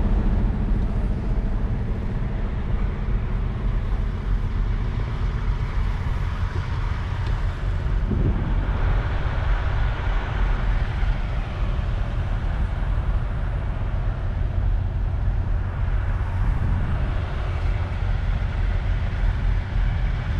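Semi-truck's diesel engine running with a steady low rumble and road noise, heard from inside the cab.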